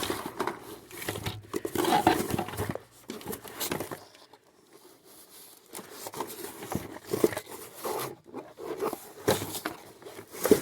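Rummaging through a cluttered pile of things: irregular rustling, crinkling and knocking as items are handled and moved aside, with a short lull about four seconds in.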